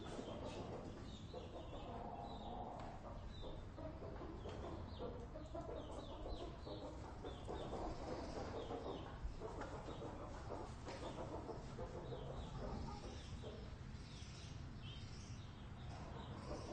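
Many chickens clucking and calling at once in a barn, a dense, unbroken chatter of short calls over a steady low rumble.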